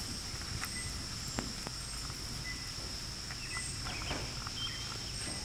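Quiet ambience: a steady high-pitched drone with scattered faint clicks and small pops.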